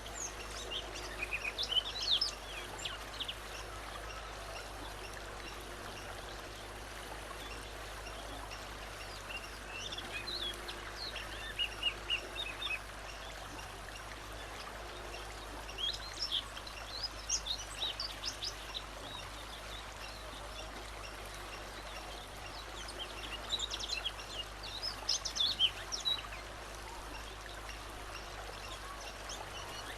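A songbird singing in four short bursts of quick, high chirping notes, separated by pauses, over a steady background hiss.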